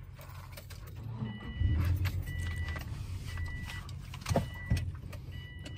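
Car warning chime dinging about once a second, over the low hum of the car's engine running.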